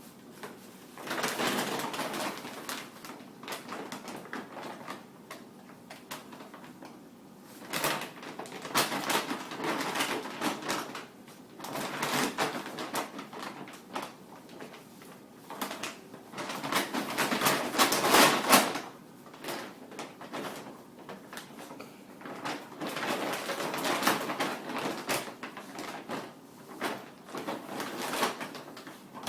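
Dog food bag crinkling and rustling in irregular bursts of a few seconds each as a dog plays with it, pawing and tugging, with quieter pauses in between.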